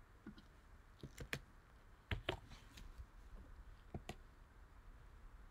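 Faint, irregular clicks of a computer keyboard and mouse as a web address is typed.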